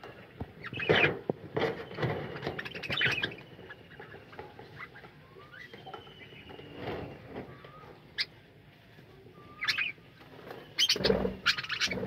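Budgerigars chirping and chattering in a colony aviary, in irregular bursts with short whistled notes, busiest about a second in and again near the end.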